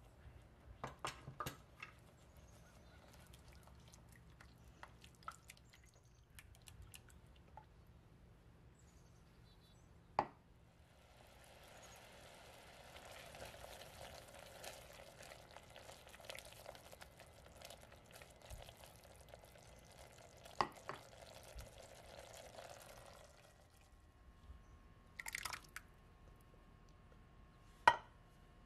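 Quiet kitchen sounds of a sauce cooking in a pot. There are a few light knocks of utensils against the pot, then a steady soft stretch of about twelve seconds as a spatula stirs and scrapes the simmering sauce. Near the end come a couple of sharper clinks that ring briefly.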